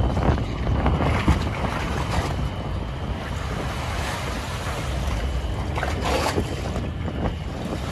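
Wind buffeting the microphone over a steady low rumble from the cruise ship Le Dumont d'Urville moving slowly past close by, with a faint steady high whine underneath. The wind noise swells a few times, most strongly about six seconds in.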